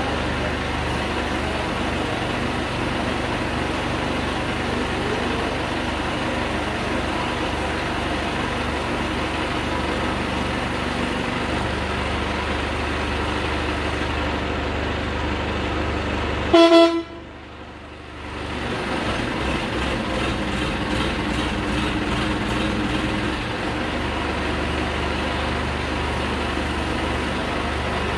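ACE hydra crane's diesel engine running steadily with a deep hum. About two-thirds of the way through, a vehicle horn toots once, briefly, and the engine sound drops away for a second or so before returning.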